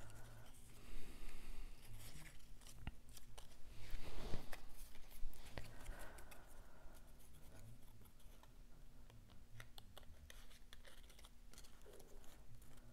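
Cut cardstock pieces rustling and crinkling in the hands as they are handled and fitted together, with many small paper clicks and a few louder rustles about a second, four seconds and six seconds in.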